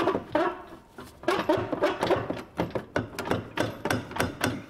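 Stainless steel exhaust pipe being worked into its joint by hand under a car: a rapid, irregular run of metal knocks and clanks with scraping between them.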